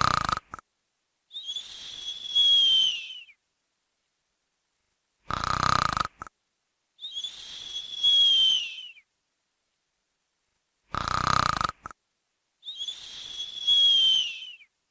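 A person snoring in a steady cycle: a short rasping snore on each in-breath, then a whistling out-breath about two seconds long that drops in pitch as it ends. The cycle repeats three times, about every five and a half seconds.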